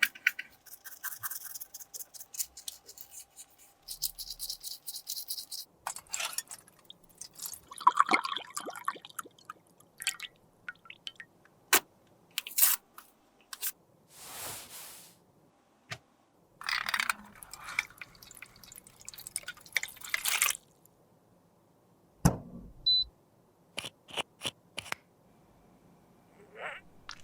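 Small clicks, taps and short scrapes of cosmetics and tools being handled close to the microphone, spaced out with quiet gaps, and a dull thud about 22 seconds in.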